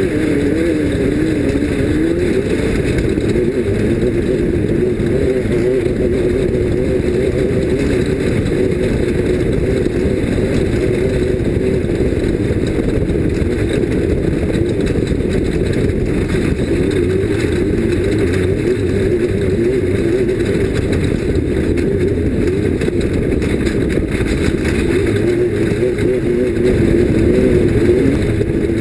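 Off-road race vehicle's engine running hard and steady, its pitch wavering up and down over a low rumble, a little louder near the end.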